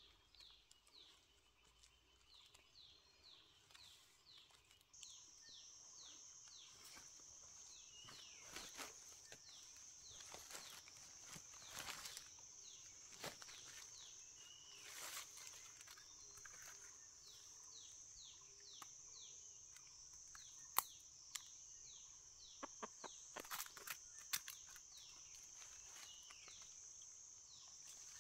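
Faint forest background: a steady high-pitched insect drone that comes in about five seconds in, over repeated short high falling chirps. Dry leaves rustle and crackle with a few sharp clicks as the leaf litter and gear are handled, the loudest clicks near the end.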